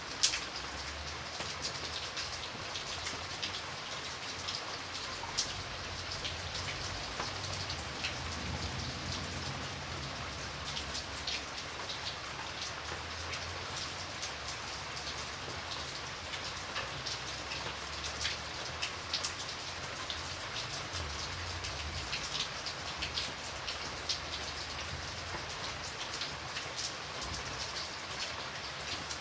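Steady rain falling, a dense hiss with many individual drops ticking on a surface, over a low rumble. A sharp single drop tick stands out just after the start.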